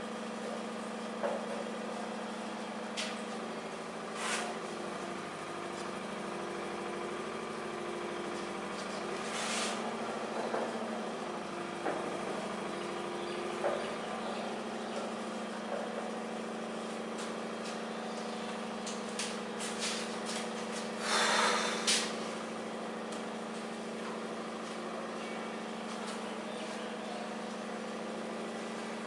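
Steady low hum in the room, with a few short scratches and taps of a marker on a whiteboard and, about three-quarters of the way through, a second-long rubbing burst as part of the board is wiped clean.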